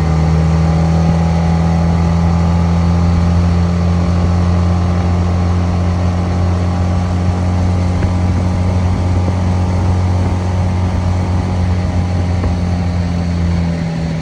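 An old Honda 10 hp four-stroke outboard motor running steadily under way, pushing a small flat-bottom jon boat.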